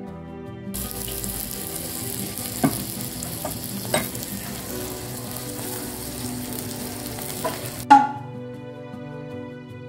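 Beefsteak sizzling on a hot iron serving plate: a steady hiss with a few pops that starts about a second in and cuts off near the eight-second mark with a sharp clink, the loudest sound.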